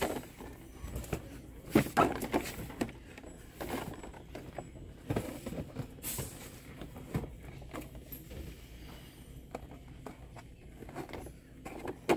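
Plastic blister-card toy packages rustling and clacking as they are pushed aside and flipped through on store display pegs, in irregular handling knocks and crinkles, loudest about two seconds in.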